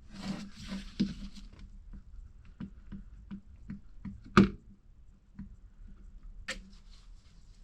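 Pull-cord recoil starter assembly being handled and worked apart: a string of small clicks and taps of plastic and metal parts, with a louder knock about four and a half seconds in and another sharp one about six and a half seconds in.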